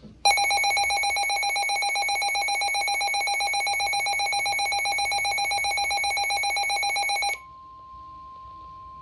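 Midland NOAA weather radio's alert alarm sounding for a severe thunderstorm warning: a loud, rapidly pulsing electronic beeping that starts just after the radio decodes the alert and stops abruptly after about seven seconds. It is followed by the quieter steady 1050 Hz NOAA Warning Alarm Tone.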